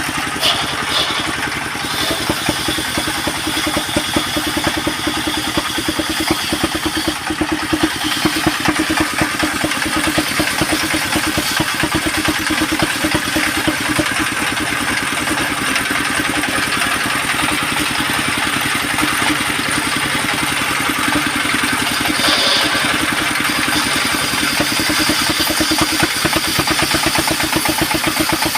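Engine powering a home-built portable circular sawmill, running steadily with a fast, even firing beat.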